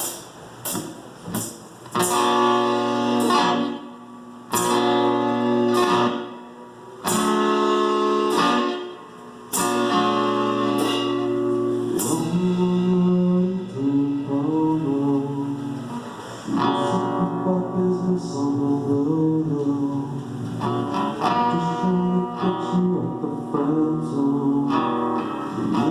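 Live acoustic guitar strumming chords in short blocks with brief pauses between them, then playing on without breaks while a voice sings a melody over it, starting about halfway through.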